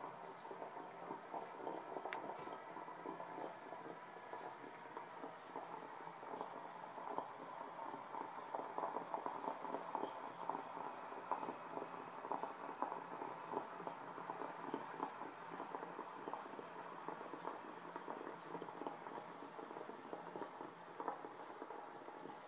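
Water heating over small gas burners in a stovetop moka pot and a metal pot: a dense, continuous crackle of tiny clicks that gets busier around the middle.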